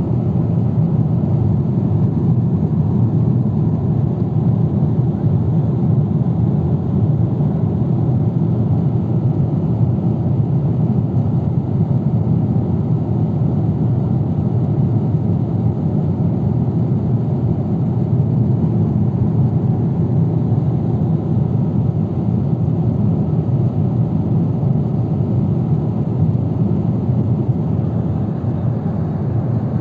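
Steady cabin noise of a Boeing 777-300ER in flight, heard inside the passenger cabin: a constant low rush of airflow and engines that holds an even level throughout.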